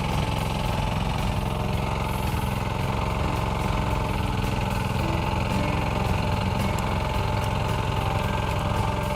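Diesel engine of a Kubota mini excavator running steadily, with a fast, even low chugging throughout.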